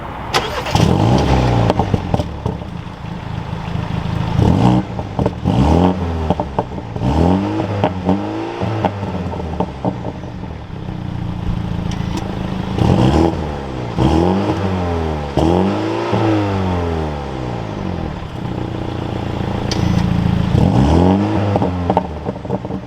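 BMW M235i's 2.0-litre turbocharged four-cylinder engine starting up and then being revved several times, the pitch rising and falling with each blip between spells of steady running.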